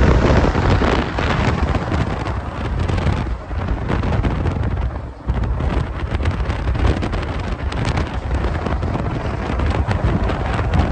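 Wind buffeting hard on the microphone over the road noise of highway traffic, with the tyres and engines of trucks and cars going by, heard from a moving vehicle. Loud, uneven gusty rumble that dips briefly about halfway through.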